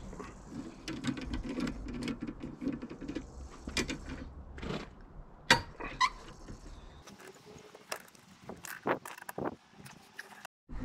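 Irregular clicks, knocks and clatter of hand tools working on screws, the sharpest click about five and a half seconds in, as the screws holding an ATV's front grille are undone.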